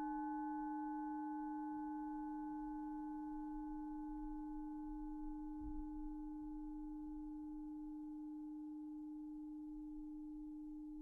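Tibetan singing bowl ringing out: one steady low hum with several higher overtones above it, slowly fading away with no new strike.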